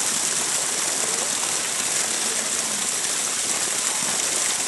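Water running steadily, a constant rushing hiss, with faint voices now and then.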